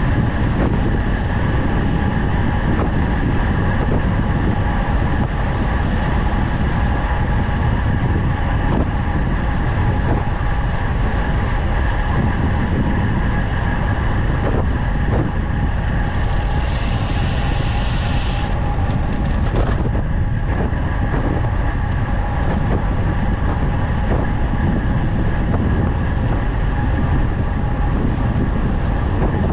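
Wind rushing over the microphone together with road-bike tyres rolling on asphalt on a fast descent at about 40 km/h, a steady loud rush. About two-thirds of the way through a brief high hiss rises over it for a couple of seconds.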